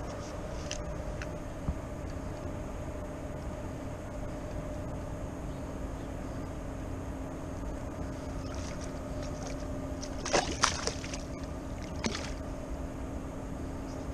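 Steady rush of flowing river water with a low steady hum underneath, and a few sharp clicks of tackle being handled about ten seconds in and again at about twelve seconds.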